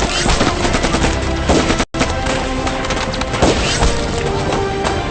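Staged gunfire and explosions mixed with dramatic background music, with shots coming thick and fast. The sound cuts out for an instant about two seconds in.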